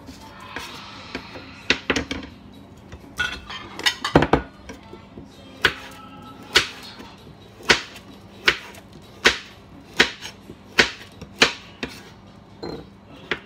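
Kitchen knife slicing carrots on a thin wooden cutting board: sharp knocks of the blade striking the board, roughly one a second, over background music.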